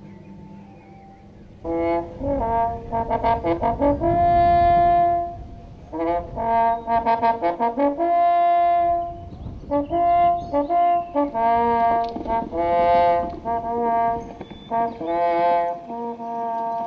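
A brass horn playing a fanfare-like melody: runs of quick notes alternating with long held notes, in several phrases separated by short pauses, starting about a second and a half in.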